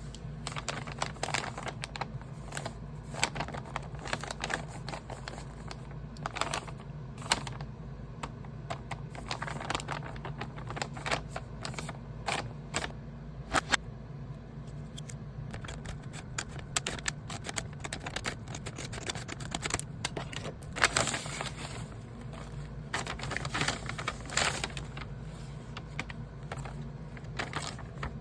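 Paper craft pieces handled close to the microphone: irregular taps, clicks and light rustles of paper, over a steady low hum.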